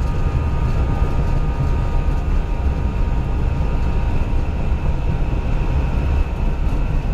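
Airbus A320 jet engines and airflow heard from inside the cockpit during takeoff and climb-out: a steady, loud low rumble with a faint steady whine above it.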